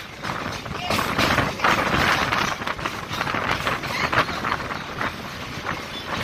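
Chennai MRTS local electric train running along the track, heard from its open doorway: a continuous rush of wheel and wind noise that swells and eases.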